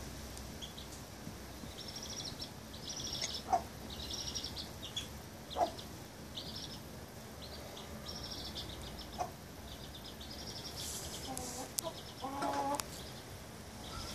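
Baby chicks peeping over and over in high-pitched trills. A hen answers with a few short low clucks, and with a longer low call near the end.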